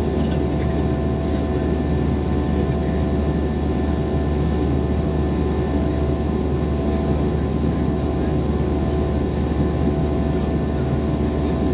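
Steady cabin drone of a Boeing 737-600 in the climb: its CFM56-7B turbofan engines and the rushing airflow, heard from a window seat. A few steady tones sit above the low rumble.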